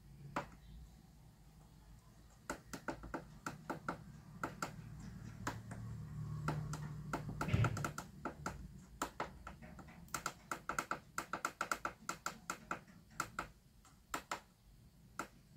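Small push buttons clicking as the LED digital clock's date and time are stepped through during setting: single clicks, then a quick run of several presses a second in the second half.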